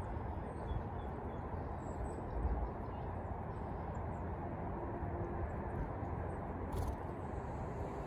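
Steady low rumbling background noise, with a few faint high bird chirps in the first couple of seconds and a single soft tap near the end.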